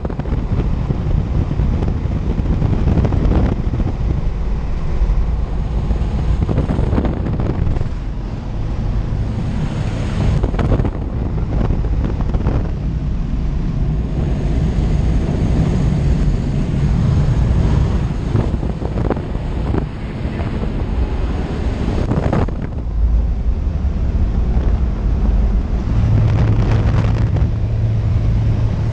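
Engine and wind noise inside the cabin of a small skydiving jump plane as it climbs: a loud, steady drone. Near the end the engine hum becomes steadier and more prominent.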